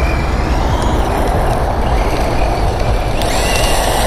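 Brushless electric motor of a VKAR SCTX10 V2 1/10 RC short-course truck driving across a dirt infield, its thin whine coming and going, under a steady rumble of wind on the microphone.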